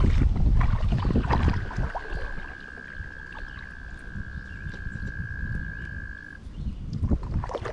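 A frog's long, steady trill, one held call that starts about a second in and stops abruptly about five seconds later. Underneath it are the low rumble of wind on the microphone and the splashes and knocks of paddling a canoe.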